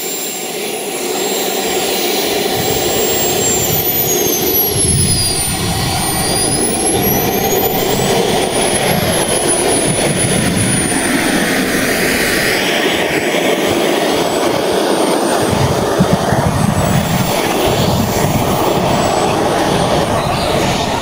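Turbine engine of a giant-scale RC Tornado model jet running as it taxis across grass: a steady jet roar with a high whine that falls and rises in pitch.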